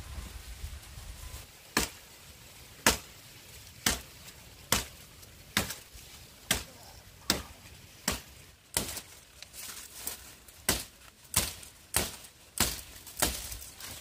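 A blade chopping sugarcane, with sharp single chops about once a second that come faster near the end.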